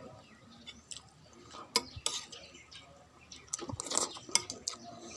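Wet eating sounds of someone eating boiled pork soup: chewing and sipping, with scattered short clicks. A busier patch comes about four seconds in.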